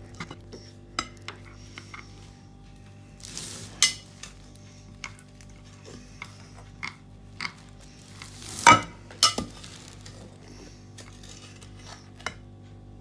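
Metal spoons stirring crushed biscuits into a thick chocolate mixture, scraping and clinking against glass dishes, with a few sharper clinks, the loudest about eight and a half seconds in.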